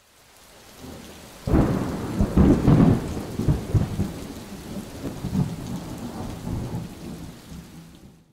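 Thunderstorm: rain falling, with a sudden clap of thunder about a second and a half in that rumbles on for a few seconds and dies away, the whole fading out near the end.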